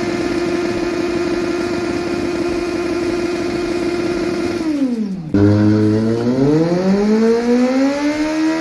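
Kawasaki Z900's inline-four engine held at high, steady revs for a burnout. About five seconds in the revs drop sharply, then jump louder and climb steadily back up.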